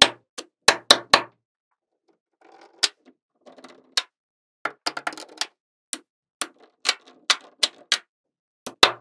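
Small magnet balls clicking and snapping together in sharp, irregular clicks, some in quick clusters, with short stretches of softer rattling as the balls roll against each other.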